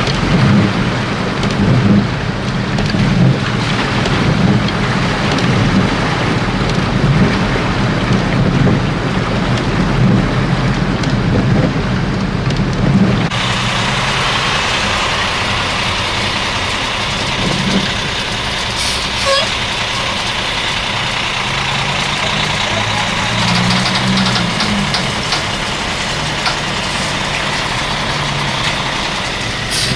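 Car cabin noise while driving through a flooded tunnel: engine and tyres running through water with a strong low rumble. About halfway through it cuts to a diesel tractor-trailer running right alongside on a wet street, with a short hiss a few seconds after the cut.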